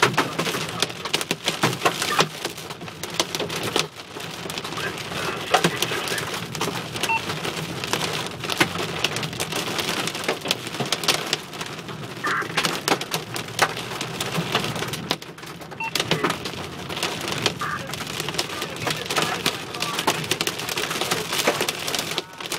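Hailstones pelting a car's roof and windshield, heard from inside the cabin: a dense, continuous clatter of small sharp impacts with a steady rain hiss underneath.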